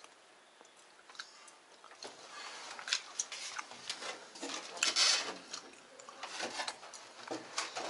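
Irregular clicks, taps and scrapes of tools and parts being handled while a washing machine is taken apart, starting about two seconds in and busiest around the middle.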